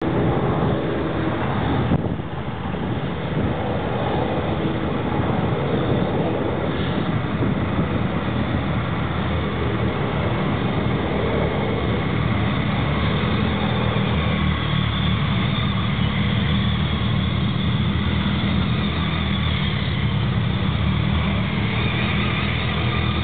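A slow motorcade passing close by: a police car, then a column of police motorcycles and a hearse, their engines running steadily at low speed.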